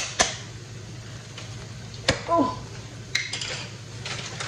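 Kitchen clatter of dishes and utensils: a sharp knock about two seconds in and a quick run of clinks a little after three seconds, over a steady low hum.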